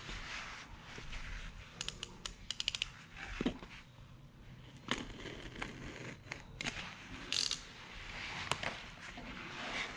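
Craft knife slicing through packing tape and cardboard on a parcel, with the scrape and rustle of the box being handled. Sharp clicks are scattered through it, including a quick run of them about two seconds in.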